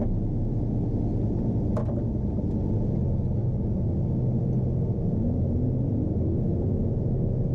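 John Deere T670i combine harvester running steadily with a low, even hum, with a click about two seconds in and a whine that rises in pitch over the last two seconds or so.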